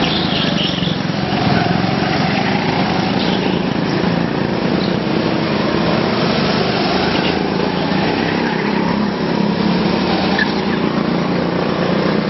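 Go-kart engines running as the karts lap the track, a steady buzzing drone that carries on without a break.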